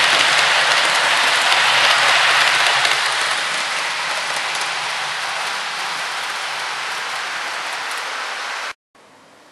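Model train running fast along the layout's track, a dense rushing rattle of wheels and motor, loudest for the first three seconds as it passes close, then fading as it runs away. It cuts off abruptly near the end.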